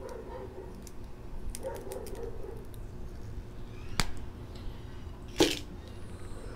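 Stiff Truper Expert PVC electrical tape being wound around a twisted-wire splice by hand: faint rustling, a sharp click about four seconds in, and a louder short crackle of the vinyl tape about a second later.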